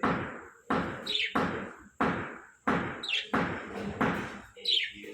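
Heavy knocks repeating in an even rhythm, about eight in five seconds, each ringing away briefly, with a few short bird chirps between them.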